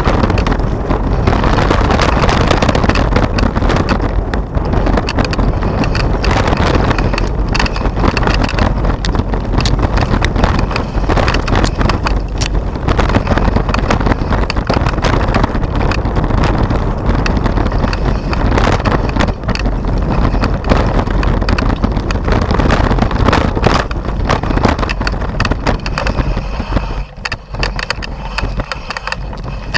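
Mountain bike riding down a rough dirt trail, heard from a camera mounted on the bike: wind rushing over the microphone, tyres on dirt and the bike rattling over bumps. It eases off a little near the end.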